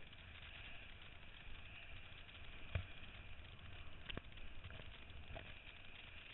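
Wind buffeting the camera microphone and water rushing past a kiteboard riding over choppy sea. A few sharp slaps break through as the board strikes chop, the loudest nearly three seconds in and another about a second later.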